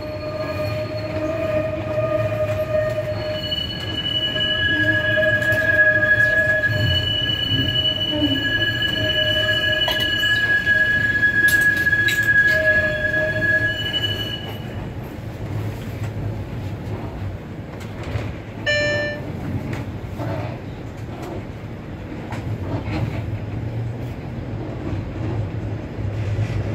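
Cabin of a TTC Flexity Outlook low-floor streetcar in motion. For about the first half its wheels squeal in several steady high tones while it rounds the tight curve of the station loop, over a constant low running rumble. After that only the rumble goes on, with a brief tone sounding about three-quarters of the way through.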